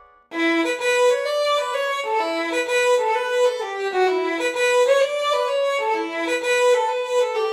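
Background music: a violin playing a melody, one note after another, coming in after a brief gap about a third of a second in.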